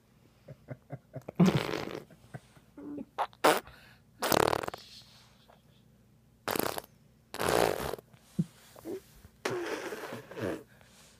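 Baby blowing raspberries with lips pressed against a bare arm: fart-like spluttering buzzes that come in about six separate bursts, each up to a second long, with short quiet gaps between.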